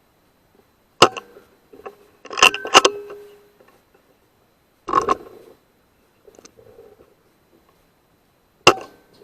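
A handful of sharp metallic clicks and clinks, one leaving a brief ringing tone, from a Weihrauch HW100 .22 air rifle being fired and cycled.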